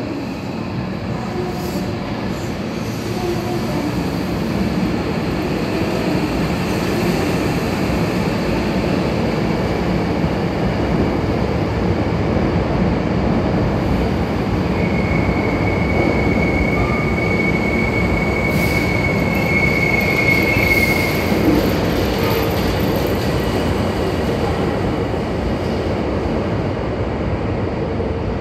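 Hankyu 7000 series electric train pulling out and running past at close range, a continuous rumble of wheels and running gear. A steady high-pitched wheel squeal rings for several seconds about halfway through.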